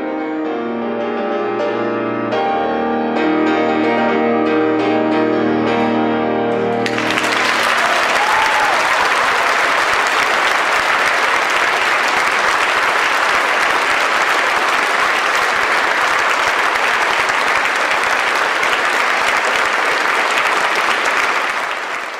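Grand piano playing with an orchestra, the music ending about seven seconds in. A concert hall audience then applauds steadily, fading slightly near the end.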